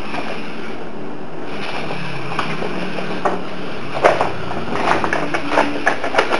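Mini RC crawler with a Tamiya 1/32 Mini Monster gearbox driven by two small servo motors, a faint motor whine over a steady hiss. From about four seconds in comes a run of sharp plastic clicks and knocks as it clambers over clutter.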